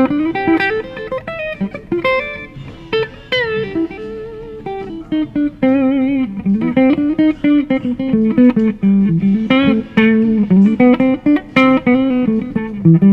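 Gibson Les Paul Goldtop electric guitar on its neck '57 Classic humbucker, played through a tube amp: a bluesy single-note lead line with string bends and vibrato.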